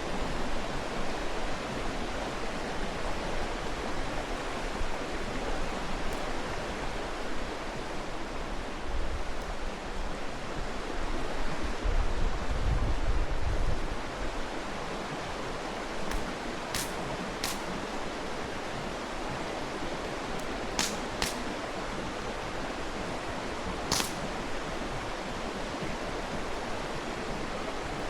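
Mountain stream rushing steadily, with a few sharp pops from a wood campfire scattered through it. Near the middle, a low rumble swells for about two seconds.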